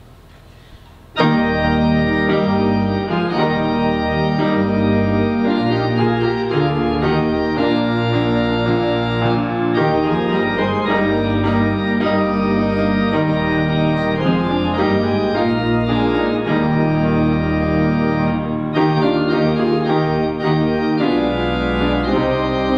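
Organ postlude: full sustained chords over a bass line, starting about a second in.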